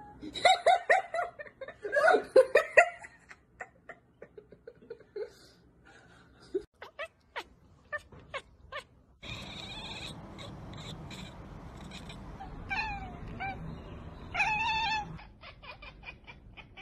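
Domestic cats yowling and meowing: a run of loud, quick cries in the first three seconds, a few scattered clicks, then a couple of rising-and-falling meows over a steady hiss near the end.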